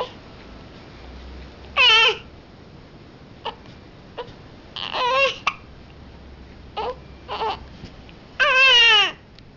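A baby crying out in three short wails that fall in pitch, the last the longest, with brief small catches of the voice between them. She has the hiccups.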